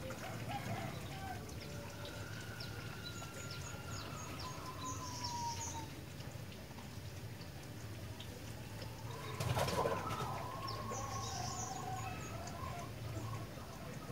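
Sooty-headed bulbul (kutilang) singing in long whistled phrases that glide up and down, with short high chirps between them. A brief rustling burst comes about two-thirds of the way through, and a steady low hum runs underneath.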